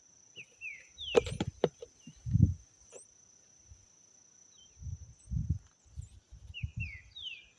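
Irregular dull thumps and scuffs of soil being pressed down firmly around a newly planted tree seedling, loudest about a second in and again in a run of several near the end. Behind them an insect keeps up a steady high buzz, and birds give a few short falling chirps.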